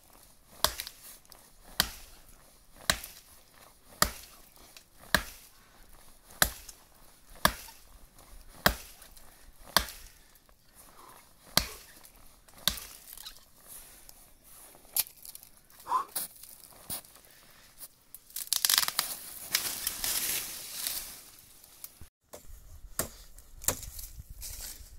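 A regular series of sharp knocks or chops, about one a second, followed near the end by a few seconds of rushing noise.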